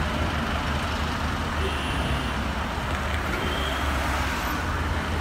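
Road traffic passing close by: the engines and tyres of a line of pickup trucks and cars going past, a steady low rumble with no sudden events.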